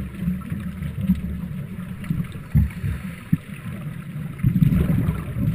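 A boat's engine running with a low, steady rumble, with two brief thuds around the middle.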